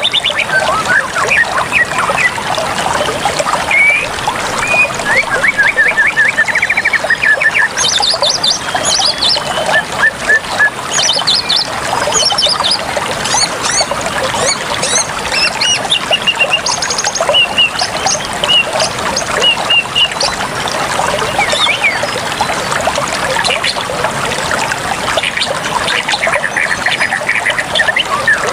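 Water trickling and splashing steadily, with birds chirping and giving rapid trills over it.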